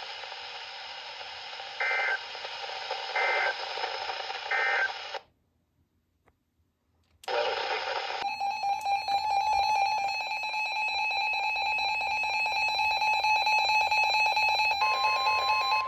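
Emergency Alert System tones over weather-radio hiss: three short data bursts about a second apart, the end-of-message code of one alert. After a cut and two seconds of silence, the next alert's steady two-tone attention signal sounds for about six seconds, then changes near the end to a single steady warning tone.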